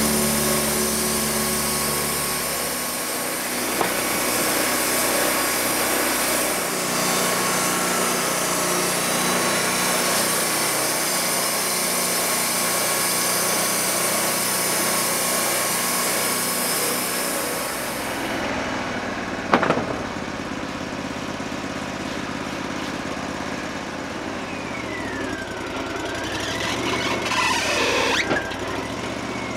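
Wood-Mizer LT40 band sawmill running, its band blade cutting through a log with a steady high hiss over the engine. About two thirds of the way in, the hiss stops abruptly as the blade leaves the cut, a sharp knock follows a moment later, and the engine runs on with a wavering squeal near the end.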